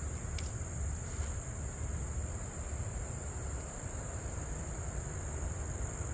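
Insects, crickets or the like, trilling steadily in one continuous high-pitched drone, over a low rumble and a couple of faint clicks in the first second or so.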